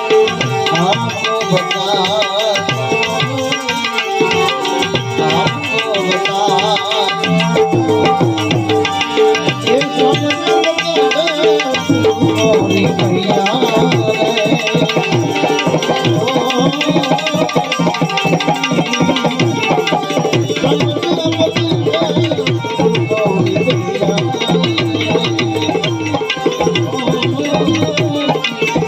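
Instrumental interlude of a Gujarati devotional song: tabla playing steadily under a wavering melodic line, with no singing.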